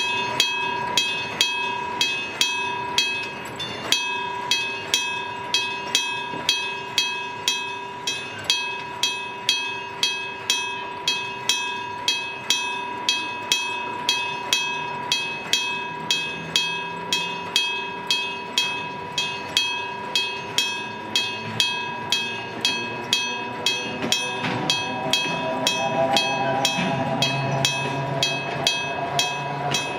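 Electric level-crossing bell starting up and ringing steadily at about two strokes a second. From about twenty seconds in, a low hum grows under the bell, and a wavering whine joins it near the end as a train approaches.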